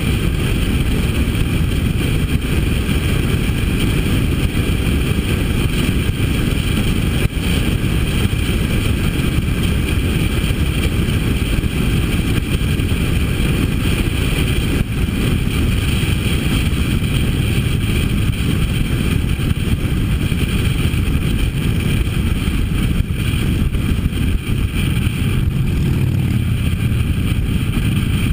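Steady riding noise from a Harley-Davidson motorcycle cruising at road speed: the engine running under a constant rush of wind on the microphone, with no clear rise or fall.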